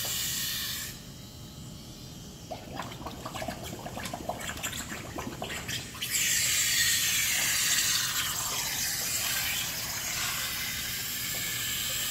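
Compressed air at 10 psi hissing and bubbling out of a marine engine heat exchanger held underwater in a tub, with water sloshing and splashing. The hiss drops away about a second in, small splashes and gurgles follow, and about six seconds in a loud steady hiss starts up again. The air escaping into the coolant side is the sign of an internal crack between the water and coolant passages: the unit has failed.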